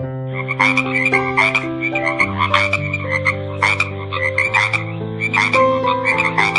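Frog croaking in a rapid series of short calls, about three or four a second, over background keyboard music with slow sustained chords.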